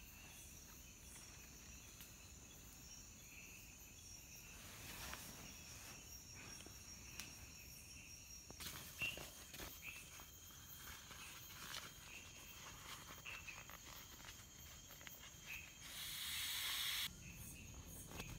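Faint steady chirring of night insects in tropical jungle. In the second half come scattered rustles and clicks of handling, and near the end a loud hiss lasting about a second.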